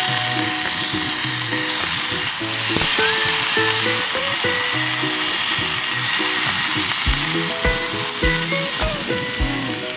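Slices of pork belly sizzling and frying in a small camping frying pan, a steady hiss as the meat is laid in and turned. Background music with a melody plays over it, and a soft beat comes in about seven seconds in.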